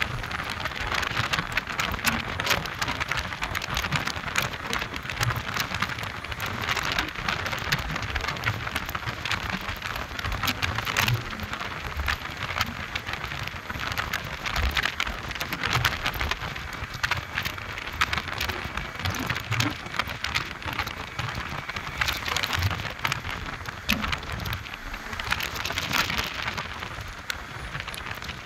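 Steady rushing wind and road noise from a vehicle moving at speed, with constant crackling and occasional low thuds of wind buffeting the phone microphone.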